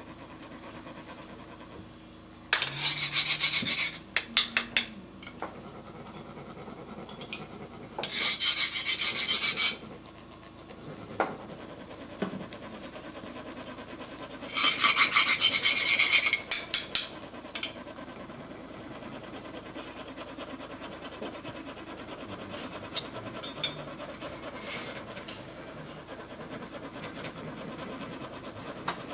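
Rasping of a monk's ridged metal sand-funnel (chak-pur) being grated with a metal scraper, which makes the coloured sand trickle onto a sand mandala. It comes in three quick bouts of rapid scraping strokes, each a second and a half to two seconds long: a few seconds in, about a third of the way through, and around the middle. After that there are only occasional faint scratches.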